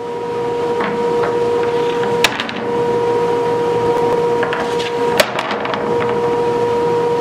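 Wooden boards set down on a table saw's metal table: two sharp knocks, about two seconds in and five seconds in, and several lighter clatters. Underneath, a shop machine's motor hums steadily.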